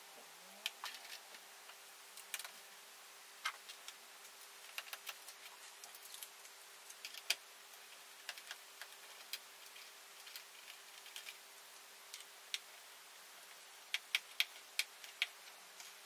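Small screwdriver and tiny case screws clicking and tapping on a MacBook Pro's aluminium bottom case as the screws are undone: scattered light, irregular clicks, with a quick run of several near the end, over a faint steady hum.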